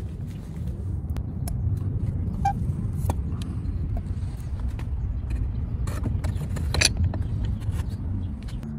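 Steady low rumble with a few sharp clicks and knocks as a crucible full of aluminium scrap is handled and lowered into a furnace; the loudest knock comes late on.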